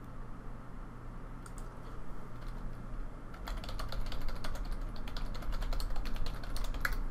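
Typing on a computer keyboard: a few scattered keystrokes, then a quick run of rapid keystrokes through the second half.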